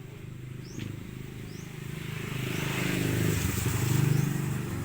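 Yamaha Mio i125 scooter's single-cylinder four-stroke engine running on fresh oil after an oil change, getting louder about three seconds in.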